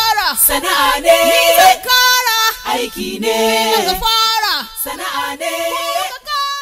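Female vocals singing a Hausa gospel song a cappella, without drums or bass, getting quieter toward the end.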